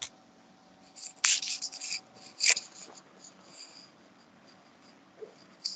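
A few short scratchy rustles close to an open microphone: a longer one about a second in and a brief one about two and a half seconds in, with a faint click or two between them.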